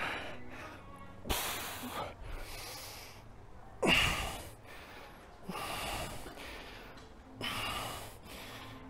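A man's forceful, noisy breaths while pressing a plate-loaded seated chest press: four hard exhalations, roughly one every two seconds in time with the reps, the second the loudest.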